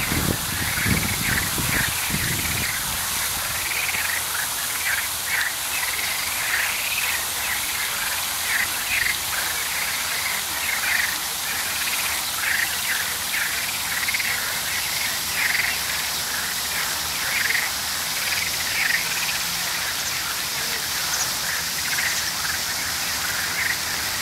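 Frogs croaking in short, irregularly repeated calls over a steady hiss, with a low rumble in the first couple of seconds.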